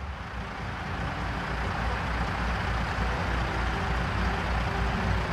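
Large truck's engine running as it drives in, a low rumble that grows louder over the first couple of seconds and then holds steady.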